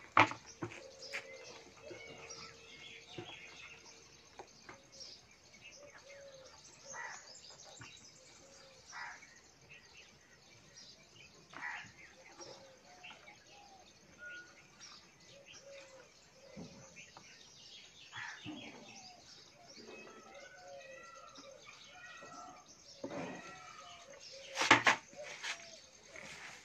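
Small birds chirping on and off, with a sharp knock right at the start and a few loud knocks or clatters near the end.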